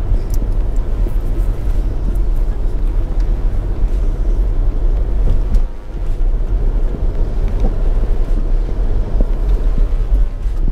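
Road noise inside a moving car: engine and tyres on wet asphalt, a steady low rumble that dips briefly about six seconds in.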